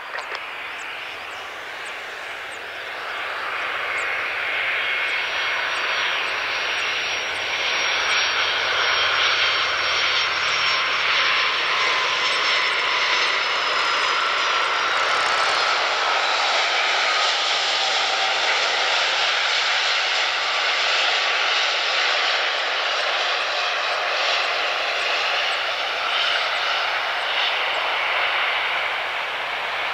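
Boeing 757 freighter's twin jet engines during landing: a steady jet noise with a faint whine on top. It swells over the first few seconds as the aircraft comes in, then holds loud through touchdown and the roll-out.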